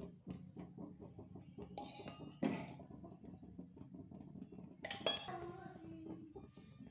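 Metal spoon clinking and scraping against a small metal kadhai while spreading oil. A string of light ticks with a few louder knocks, the clearest about a third of the way in and again near three-quarters through.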